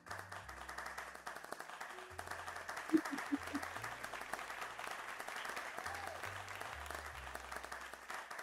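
Applause: a dense, steady clapping of many hands that starts abruptly and cuts off just after the end, over soft background music.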